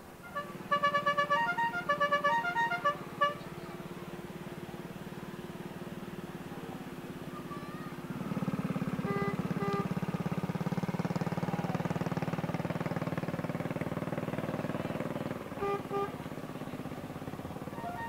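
A multi-note musical car horn playing a quick tune of short notes. Then a small engine buzzing steadily as a mini parade car drives past, with a couple of short horn beeps over it. The horn tune starts again near the end.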